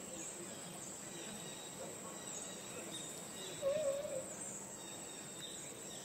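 Steady high-pitched insect chorus in forest. A short wavering animal call rises above it about three and a half seconds in.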